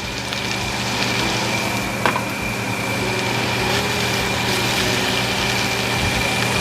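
Steady motor hum from a kitchen exhaust fan, with a thin high whine above it, and a single light knock about two seconds in.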